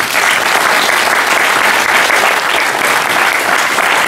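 Audience applauding, many hands clapping densely and evenly.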